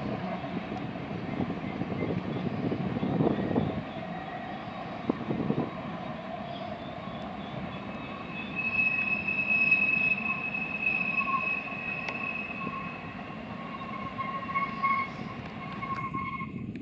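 Freight train cars rolling steadily on the curving track, a continuous rumble of steel wheels on rail. From about halfway through, steady high-pitched wheel squeal from the flanges grinding on the tight curve of the loop.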